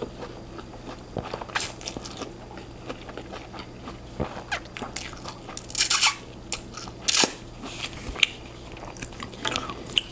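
Close-miked eating of stir-fried noodles and vegetables: wet chewing and crunching, with short slurps of noodles being sucked in, the loudest about six and seven seconds in.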